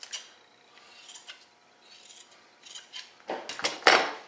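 Fiberglass cloth being handled by gloved hands: a few short, crisp rustles, with a louder cluster near the end.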